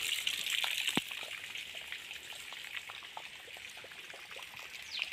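Water trickling and splashing in a well, growing fainter, with a few sharp clicks about a second in and near the end.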